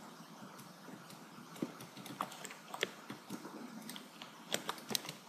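Computer keys clicking as they are pressed, a few single clicks at first, then a quicker cluster near the end, over a faint steady hiss.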